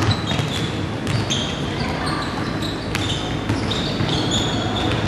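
Basketball play on a hardwood gym floor: the ball bouncing several times and sneakers squeaking in short high chirps as players cut and stop, over the echoing hum of a large hall.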